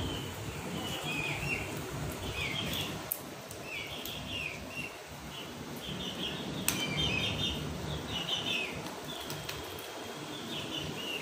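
High-pitched chirping: a short burst of chirps about once a second, over a low steady hum, with a sharp click about two-thirds of the way through.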